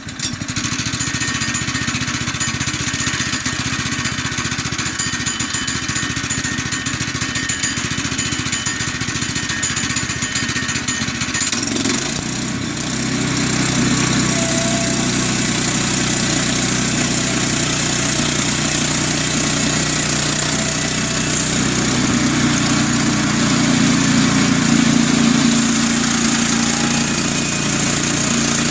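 Woodland Mills HM122 portable band sawmill running, its small gas engine and band blade going steadily. About twelve seconds in the sound deepens and gets louder and stays that way, as the blade starts into the log and the engine works under the load of the cut.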